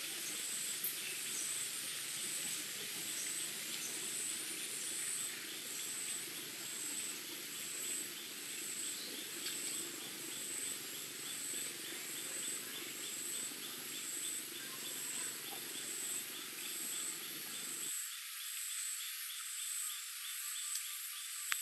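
Forest insect chorus: a steady high chirring trill, with a higher pulsing call repeating roughly once a second.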